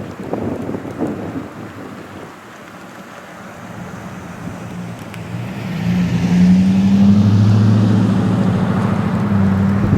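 Wind buffeting over rough noise, then from about halfway a vehicle engine's steady low drone that swells and stays loud near the end.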